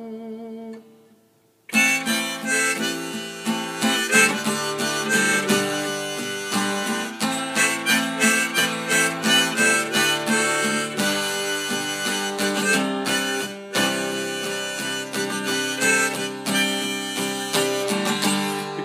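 Harmonica in a neck rack plays an instrumental break over strummed acoustic guitar, starting after a short gap near the start.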